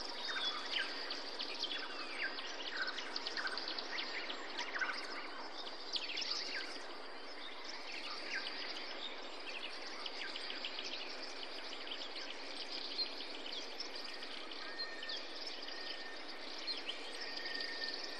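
Outdoor bird chorus: many small birds chirping in quick, short calls over a steady hiss, with a thin held whistle in the last few seconds.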